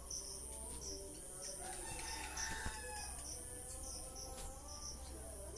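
A rooster crowing faintly about two seconds in, over a short high chirp repeating about twice a second.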